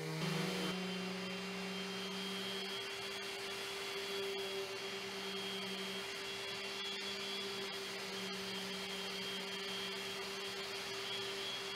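Electric random orbital sander running steadily against a solid mahogany table top, with a dust-extraction hose drawing air through it: an even hum with a faint high whine over the sanding hiss. It is a first sanding pass taking the old finish and watermarks off the top.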